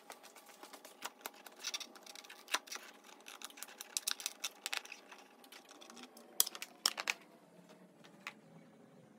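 Hands working the plastic airbox and air filter of a motorcycle: a rapid, irregular run of light plastic clicks and taps, with a few sharper clicks about two-thirds through.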